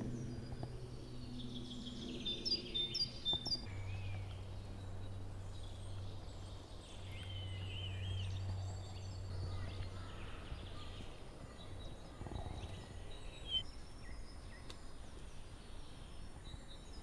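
Woodland birds singing in short chirps and trilled phrases, with a low steady hum underneath that fades out about two-thirds of the way through.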